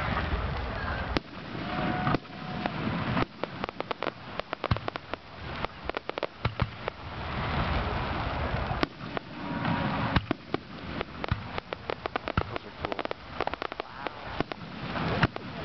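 Aerial fireworks going off: a dense, continuous run of crackles and pops, with two sharper single reports, about a second in and about nine seconds in.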